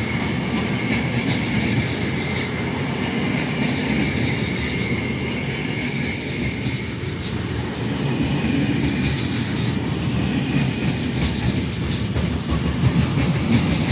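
Freight train of loaded flat wagons rolling past, wheels clacking over the rail joints over a steady low rumble, with a faint steady wheel squeal in the first few seconds. Near the end the rear FS E652 electric locomotive passes and the sound swells briefly.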